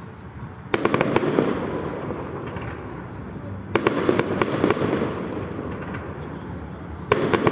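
Fireworks shells bursting in three volleys about three seconds apart, each a quick run of sharp bangs followed by a rumbling tail that fades.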